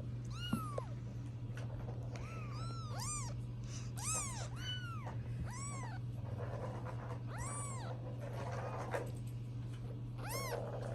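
British Shorthair kitten mewing about ten times, short high mews that each rise and fall in pitch, over a steady low hum.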